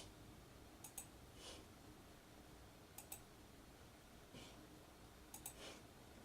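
Faint clicks of a computer mouse: three quick double-clicks spread about two seconds apart, with soft rustles between them.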